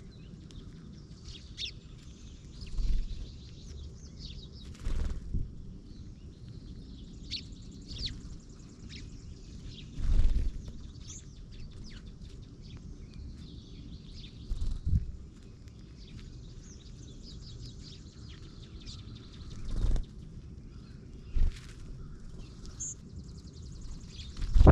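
Small songbirds chirping and twittering with short, high calls throughout. Several brief low rushes or bumps come every few seconds, the loudest near the end.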